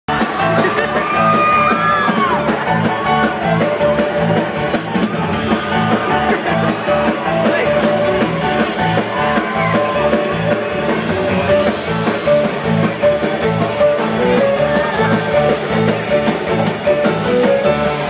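Live rock band playing: drums keeping a steady beat under electric guitars and keyboards, loud through the stage PA, with shouting voices over it. The music stops at the very end.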